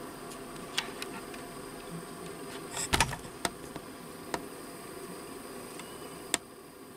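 Small gas torch flame hissing steadily, with a few sharp clicks and knocks from handling, the loudest cluster about three seconds in. The hiss drops a little near the end.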